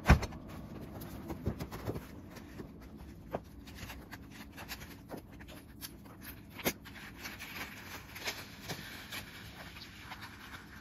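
A sharp knock at the very start, then scattered faint knocks and clicks of wooden cross-country skis and their bindings being handled and set down on packed snow.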